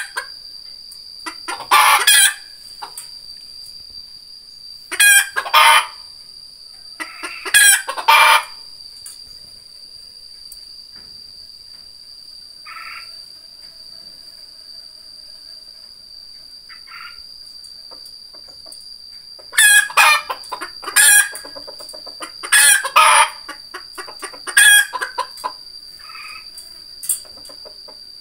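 Red junglefowl crowing in short, loud, clipped calls, about eight in all, in two groups with a long quiet gap in the middle, over a steady high-pitched insect drone.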